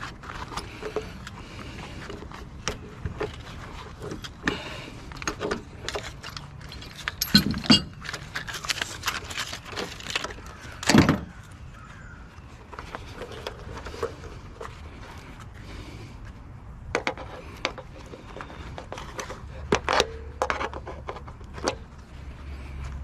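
Scrap metal being handled: scattered clinks, knocks and rattles, with two louder thuds about 7 and 11 seconds in, over a low steady hum of traffic.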